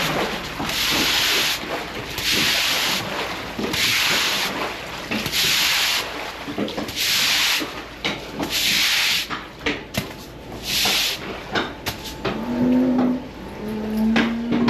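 A broom sweeping floodwater across a concrete barn floor, in steady hard strokes, a swish about every second and a half, seven in all.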